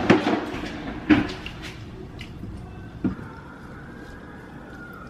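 Kitchen drawer being opened and rummaged through: a few sharp knocks and clatters in the first second or so, the loudest about a second in, and one more knock about three seconds in.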